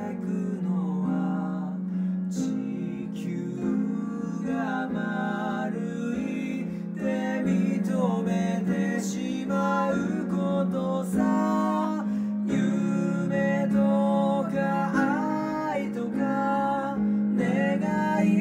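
A man singing a ballad in Japanese, accompanied by acoustic guitar.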